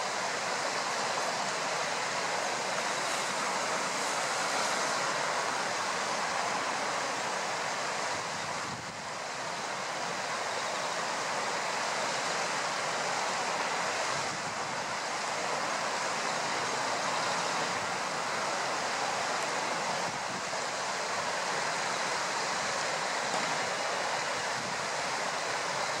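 A steady rushing noise with no bird calls or other distinct sounds.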